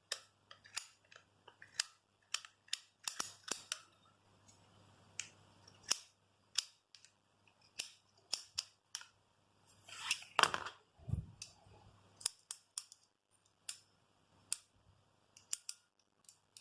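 Ratchet spanners' metal ratchet mechanisms clicking as they are worked and handled: sharp, irregular clicks, some in quick runs, with a louder metallic clatter about ten seconds in.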